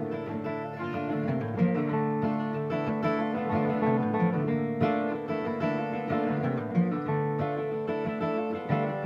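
Acoustic guitars playing an instrumental passage of a folk-country song, picked and strummed notes with no vocals.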